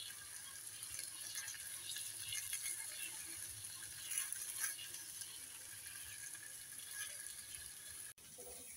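Turkey fillet sizzling in a cast iron skillet over hot charcoal: a faint steady hiss with many small crackles and pops, cut off abruptly near the end.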